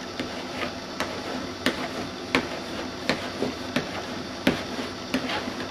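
Short, sharp clicks and taps, roughly one every two-thirds of a second, from hands working a wet vinyl graphic down onto a plastic snowmobile hood, over a faint steady hum.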